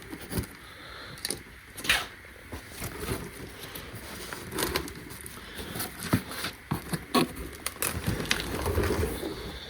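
A cardboard shipping box being cut open at the bottom and pulled apart by hand: irregular crunching, scraping and rustling with sharp cracks scattered through.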